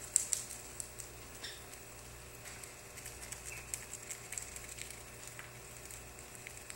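A small bird's light pecking and scuffling: irregular scattered ticks and scratches, with a couple of brief faint chirp-like notes, over a faint steady hum.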